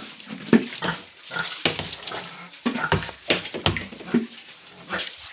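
Pigs grunting irregularly in their pen, with short knocks and scuffs among the grunts.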